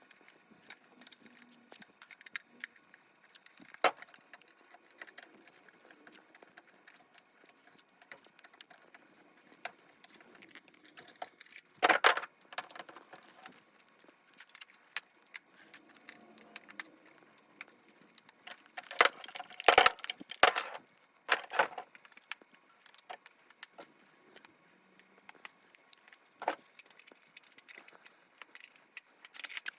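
Scattered plastic clicks and rattles of a Nerf Rapid Strike blaster being handled while C batteries are fitted, with a short burst of clatter about twelve seconds in and a longer, louder run of clatter around twenty seconds in.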